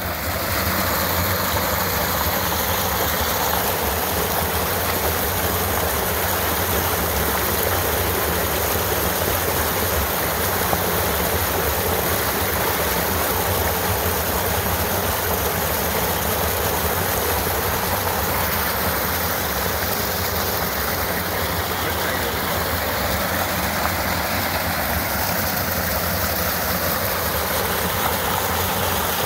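Small mountain creek cascading over rocks into a plunge pool: a steady, unbroken rush of white water.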